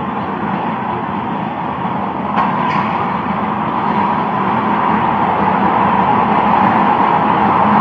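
Steady motor-vehicle noise, slowly growing louder, with a faint click a little over two seconds in.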